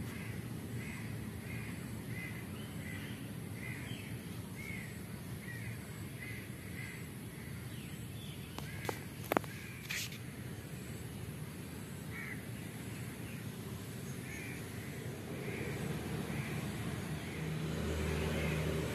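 A bird calls repeatedly in a steady series of short calls, about two a second, in two runs with a pause in the middle. A few sharp clicks come about nine and ten seconds in, over a steady low background rumble.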